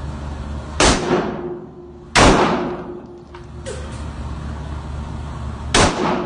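Three gunshots at a shooting range, with the gaps between them uneven. The second shot is the loudest, and each shot leaves a short echoing tail. A steady low hum runs beneath.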